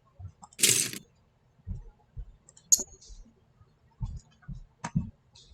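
LEGO parts being handled and fitted together: a short, loud rattle of pieces about half a second in, then sharp plastic clicks, with soft knocks of parts against the table between them.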